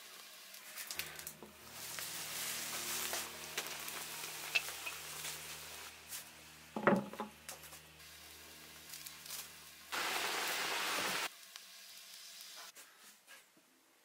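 Straw burning in the firebox of a traditional brick stove, crackling and hissing over a low steady hum, with a louder crack about halfway through and a stronger steady hiss for about a second near the end.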